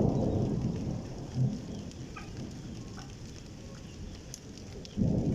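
Monsoon rain falling steadily with rolling thunder: a low rumble dies away over the first second and a half, and another loud rumble breaks in suddenly near the end.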